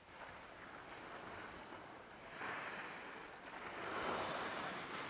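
Skis sliding and scraping over snow during a downhill run: a steady hiss that gets louder about halfway through and peaks near the end, with wind on the action camera's microphone.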